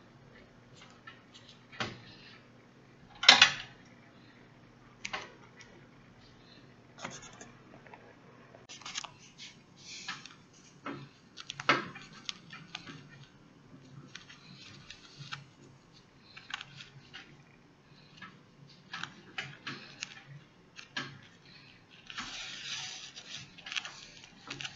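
Rustling and scattered clicks from hands sewing a hair weft onto a mesh wig cap with a needle and thread close to the microphone, with sharper clicks about three and about twelve seconds in and a longer rustle near the end.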